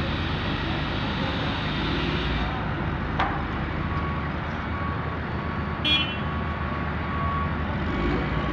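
Mobile crane's engine running steadily during a lift. A faint intermittent beeping starts about four seconds in, and a brief sharp high sound comes just before six seconds.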